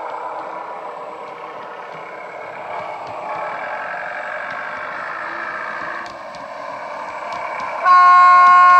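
Sound-decoder recording of a GWR AEC diesel railcar played through the onboard speaker of an OO gauge model: the diesel engine running under way, its note rising about three seconds in and dropping about six seconds in, then a loud horn blast near the end.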